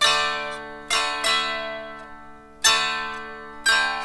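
Dulcimer played improvised: five strummed chords at an uneven pace, each ringing out and fading, over steady sustained drone notes.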